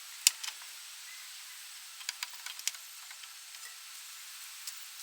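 Scattered sharp clicks and light taps over a steady faint hiss: one sharp click near the start, a cluster about two seconds in, another near the end.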